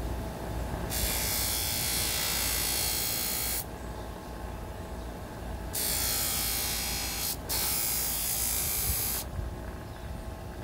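Motor-driven buffing wheel running steadily while a steel knife blade is pressed against it, charged with white compound, for the final polish. Three times, each for a second or two, the contact adds a loud hiss over the motor's hum, starting and stopping sharply as the blade goes on and off the wheel.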